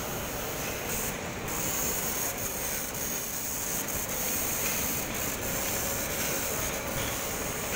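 Steady hiss and rumble of running machinery, with a few faint clicks.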